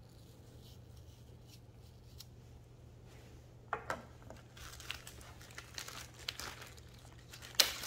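Small plastic tobacco sample bag crinkling as it is handled and opened, with a few sharp clicks, the loudest near the end. The first few seconds hold only a low steady hum.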